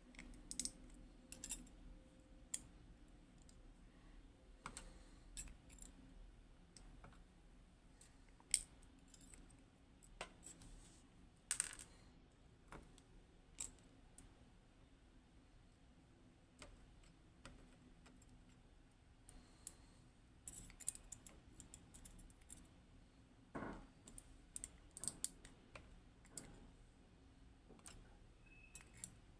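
Small metal lock parts being handled while a Hori Trident lock is taken apart: irregular light clicks and taps, a few of them sharper and louder.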